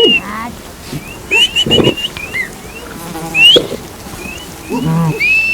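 A flock of sheep bleating, with many short, rising whistles from a herder driving the flock.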